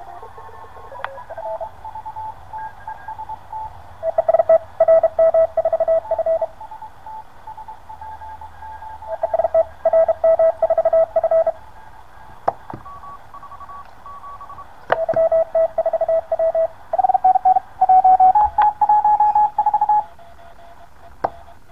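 Morse code (CW) signals from an HF QRP SDR transceiver's loudspeaker on the 20-metre band: several stations keyed at different pitches over a steady band hiss, the strongest coming in runs of a second or two, with the pitches shifting slightly as the receiver is tuned.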